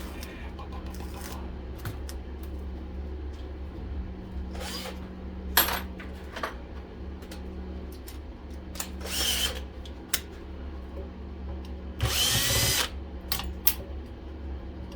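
Cordless drill spinning out screws from a central vacuum motor in short runs, each rising and falling in pitch, the longest and loudest near the end, with small clinks of metal parts. A steady low hum runs underneath.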